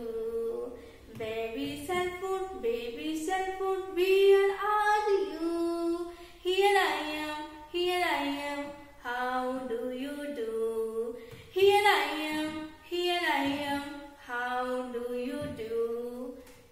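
A woman singing a children's nursery rhyme unaccompanied, in short sung phrases with brief breaks between them and a few sliding drops in pitch.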